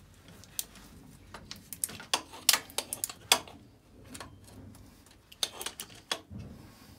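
Ratchet of a torque wrench clicking in quick, irregular runs as the lower timing-belt tensioner bolt on a Mitsubishi 4D56 diesel is tightened, with a pause in the middle.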